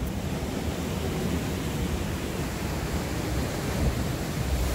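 Rough sea surf breaking and washing over shoreline rocks: a steady rush with a heavy low rumble, swelling slightly near the end.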